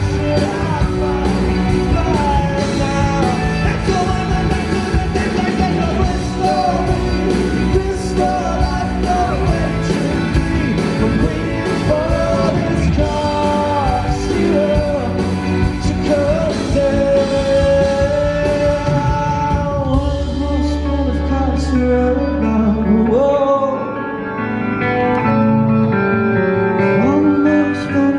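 Live rock band with a male lead singer performing a song. A long held low note ends about 23 seconds in, and the accompaniment thins out after it.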